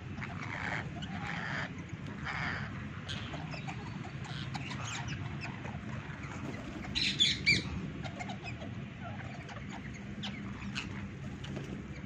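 A flock of rose-ringed parakeets feeding on dried corn cobs: a steady scatter of small clicks and cracks from beaks working the kernels, with short squawks, and a loud burst of squawking about seven seconds in.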